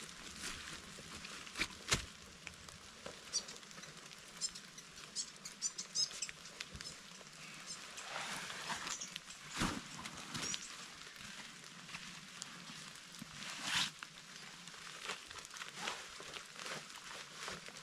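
Footsteps of a hiker walking a bush track, an uneven run of soft crunches and knocks, with a few short high chirps between about three and seven seconds in.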